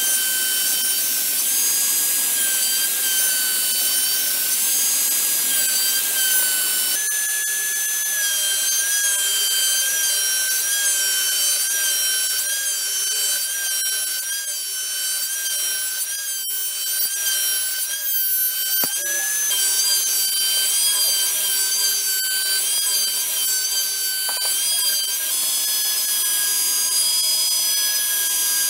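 Homemade CNC router's spindle whining steadily as its bit mills alder, with a hiss of the cut over the whine. The whine's pitch shifts slightly a couple of times.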